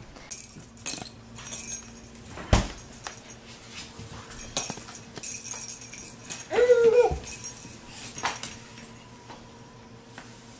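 A kitten meows once, short, rising then falling, about two-thirds of the way through. Scattered light knocks and rustling come before it.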